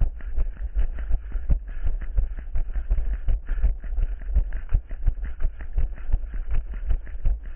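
A runner's footsteps: fast, regular thuds at about three a second, over a constant deep rumble.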